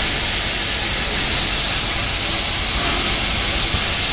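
Southern Pacific 4449, a GS-4 class 4-8-4 steam locomotive, standing with a steady, loud hiss of escaping steam.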